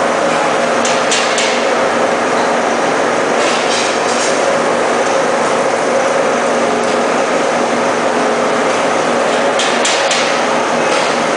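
Lead cathode casting machine running: a loud, steady mechanical din, with short sharp noises about a second in, around three and a half seconds in, and again near the end.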